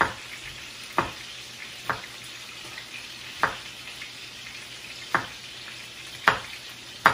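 Chef's knife dicing jalapeño peppers on a wooden cutting board: seven sharp knocks, unevenly spaced about a second apart, over a steady sizzle of chicken frying in a pan.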